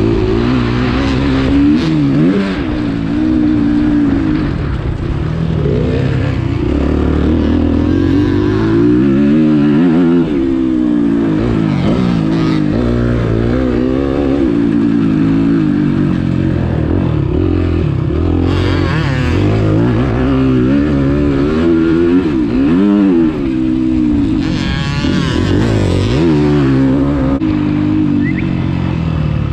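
Two-stroke motocross bike engine being ridden hard, its pitch rising and falling over and over as the throttle is worked and gears are changed. Two short rushes of hiss come about two-thirds in and again a few seconds later.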